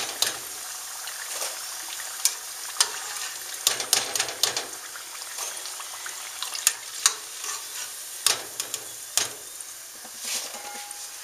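Dough pieces deep-frying in hot oil, a steady sizzle with frequent sharp clicks, as a slotted metal skimmer lifts the fried pieces out of the enamel pot.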